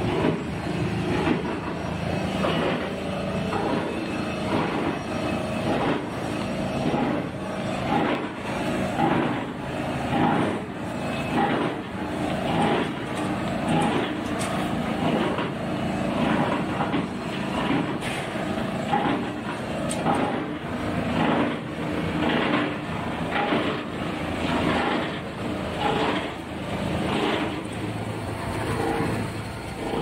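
Plastic film washing and recycling line running: steady industrial machine noise with a regular pulsing beat, a little faster than one a second.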